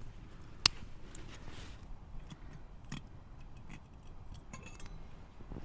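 Campfire wood crackling: scattered small clicks and pops, with one sharp, loud snap about half a second in.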